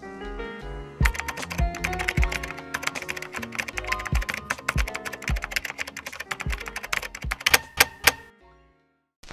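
Background music with a rapid run of keyboard-typing clicks over it, a typing sound effect. Both stop a little before the end.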